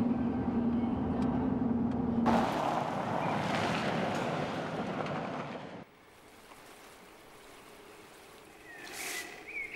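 A vehicle driving along a gravel forest road: a steady engine hum with a held low tone, giving way after about two seconds to rushing tyre-and-wind noise. About six seconds in it cuts to faint forest ambience, with a short chirp near the end.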